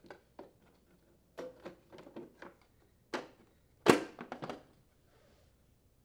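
Rear shroud of a Honda HRR216 mower being handled and pushed into place on the deck, making scattered light knocks and clicks, with one sharp, loud click about four seconds in.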